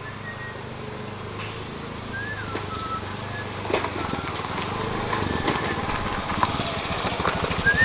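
Small motor scooter engine running as it rides up, getting steadily louder, with a faster, chugging note from about five seconds in as it comes close.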